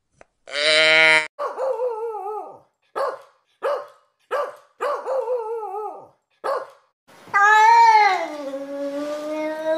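Dog barking in short, separate barks and whining with a wavering pitch, then a long howl near the end that falls in pitch and then holds.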